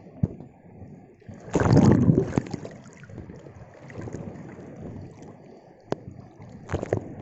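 Rough sea surf washing and sloshing around, with a loud rushing surge of water about one and a half seconds in. Scattered sharp knocks and rubbing come from the phone's waterproof pouch.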